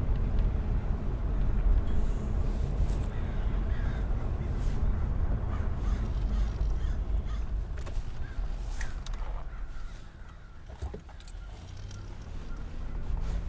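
A dog barking in short, harsh bursts at other dogs, over a steady low vehicle rumble that eases about ten seconds in.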